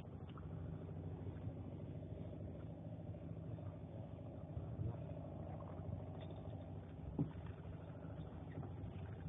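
Fishing boat's engine running steadily at trolling speed, an even low hum, with one brief knock about seven seconds in.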